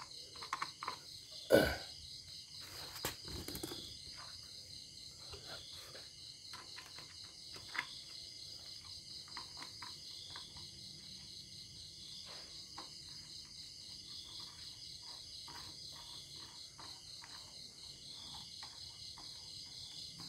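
Plastic air-filter cover being handled and fitted back onto a brush cutter's stopped engine: one sharp knock about a second and a half in, a few lighter knocks and clicks after it, then faint small ticks. A steady high-pitched background whine runs under it all.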